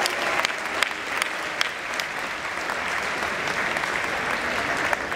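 Crowd applauding steadily, a few individual claps standing out above the rest, in reaction to a placing being announced.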